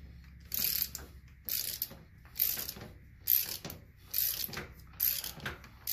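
Hand ratchet wrench clicking in short bursts about once a second, each burst a backswing of the handle while a loosened bolt is backed out of a Hydro-Gear ZT-2800 transmission.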